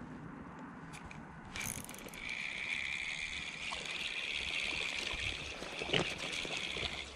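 Spinning reel being cranked, a steady whir starting about two seconds in and running until just before the end, with a short click before it and a sharp knock near the end.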